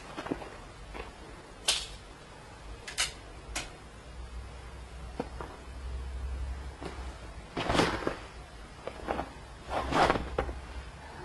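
Handling noise and rustling on bedding: scattered sharp clicks and knocks, then two louder rustling bursts in the second half.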